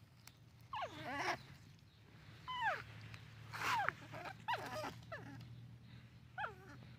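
Baby macaque crying: about five short, high-pitched wavering cries, each falling in pitch, spaced roughly a second apart.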